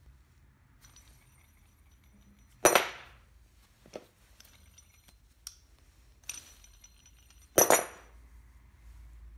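A homemade steel brake-piston spreader tool (flat iron bar on a threaded rod with nuts) clanking on a plywood workbench as it is handled and set down: two loud sharp metallic clanks, each with a brief ring, about five seconds apart, with a few lighter clicks between.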